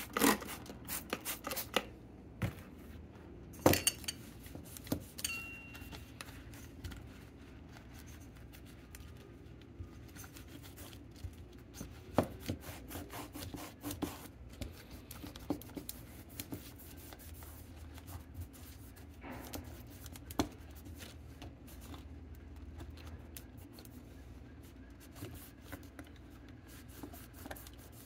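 A microfiber cloth rubbing and wiping over a pinball machine's metal drop-target assembly. Scattered clicks and knocks of the metal parts being handled sound through it, the loudest about four seconds in.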